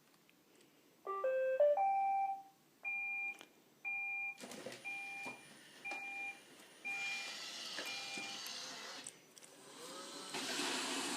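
Roomba robot vacuum starting up: a quick rising electronic tune, then a repeating two-note beep, with its motors starting under it. Near the end the vacuum motor spins up with a rising whine into a steady whir as cleaning begins.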